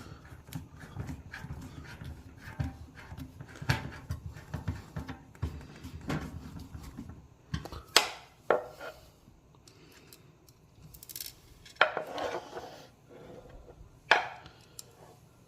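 Scattered clicks and knocks of dishwasher parts being handled and fitted back into place, with a few louder sharp knocks in the second half.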